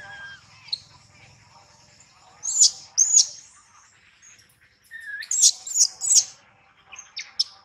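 Short, loud, high-pitched animal squeaks: two about two and a half to three seconds in, then a quicker run of four or five from about five seconds in to near the end.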